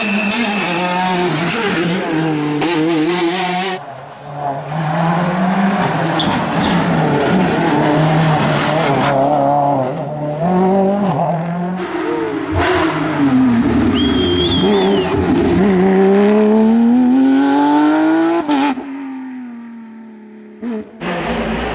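Rally cars driven hard through bends, one after another. Each engine revs high, drops and climbs again through quick gear changes, with abrupt switches from one car to the next. Near the end one engine fades as its car pulls away.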